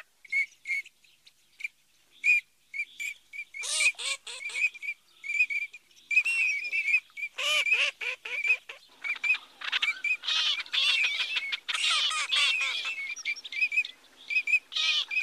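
A flock of common teal calling: the drakes' short, high whistled 'krick' notes repeated in quick runs. Several bursts of lower, harsher overlapping calls come in about four, seven and ten seconds in.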